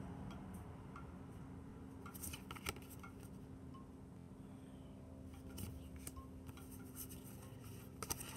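Tarot cards being handled one by one: scattered soft clicks and snaps of card stock as cards are moved and laid down, over a faint steady low hum.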